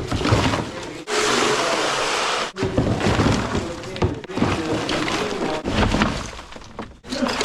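Junk debris crashing and clattering as it is handled during a cleanout, in loud rough stretches broken by two brief gaps.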